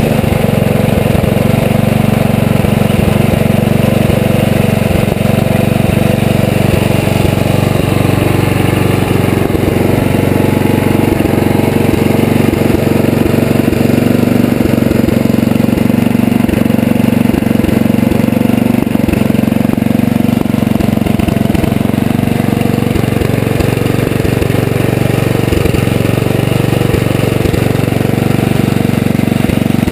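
Freshly rebuilt Tecumseh HSK70 7 hp single-cylinder four-stroke snowblower engine running steadily and loudly after being pull-started.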